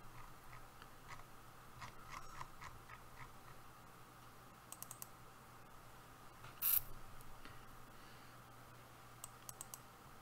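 Faint, scattered clicking of a computer mouse and keys, with quick runs of clicks about halfway through and near the end and one sharper click about two-thirds in.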